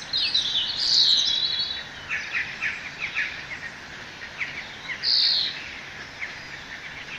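Several wild birds chirping and singing together, with a dense burst of song about a second in and a short loud call near five seconds, over a faint steady hiss.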